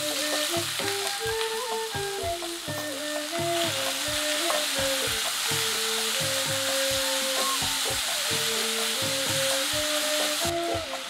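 Sliced red onions and curry leaves sizzling in hot oil in a metal pan as they are stirred with a wooden spatula. The sizzle gets louder about three and a half seconds in and eases just before the end.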